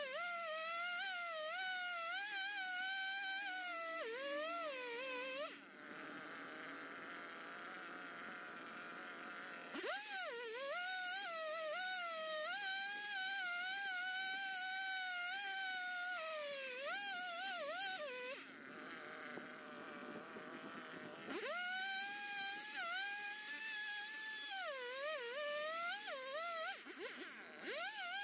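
Gas chainsaw cutting into a large wooden log in three long bursts at high revs, the whine sagging and wavering in pitch as the chain loads in the wood, and quieter between the bursts.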